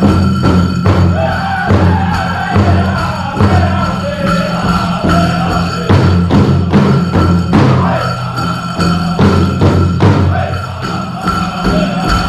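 Powwow drum group beating a large shared drum, with the singers' voices rising and falling over the beat.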